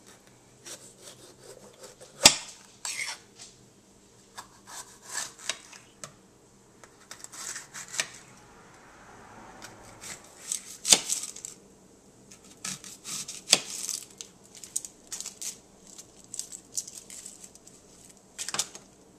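Knife slicing a green bell pepper into rings: a string of short, crisp cutting strokes, with a few sharper knocks of the blade on the cutting board.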